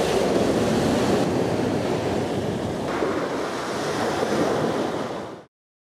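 Sea surf with wind blowing across the microphone: a steady rush of noise that cuts off suddenly near the end.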